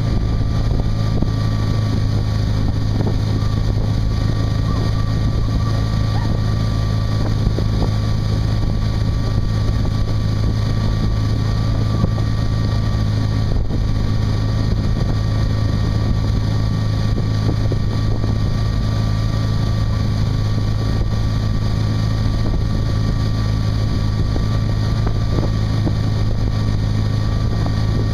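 Ski boat's engine running at a steady drone while towing a water skier, with wind buffeting the microphone.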